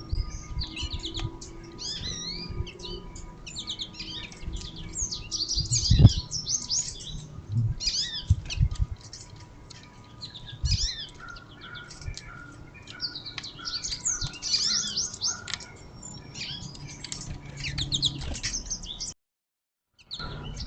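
Small songbirds at a feeder chirping and twittering in quick, overlapping series, with low thumps among them, the loudest about six seconds in. The sound drops out for about a second near the end.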